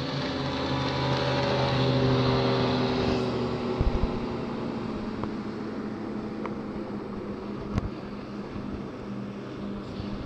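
Motorboat engines on the water. One boat's engine swells as it speeds past and then drops in pitch and fades, over a steady low engine hum. A couple of low thumps come through near the middle.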